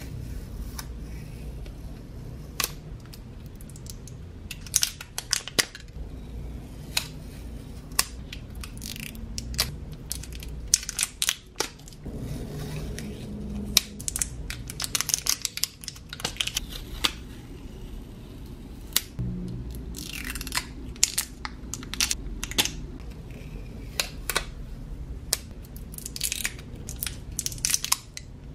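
Close-up crinkling, rustling and tearing of the thin plastic film wrapped around washi tape rolls as fingers peel it off, with many sharp fingernail clicks and taps on the rolls.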